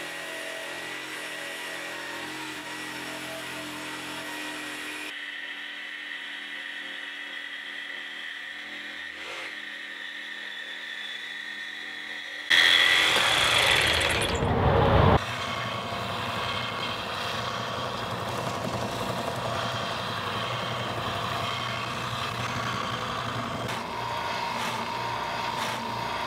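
Craftsman jigsaw with aluminum-cutting blades sawing through an aluminum plate: a steady buzzing run, much louder for a few seconds about halfway through. After that, a benchtop oscillating belt sander runs steadily, sanding the aluminum.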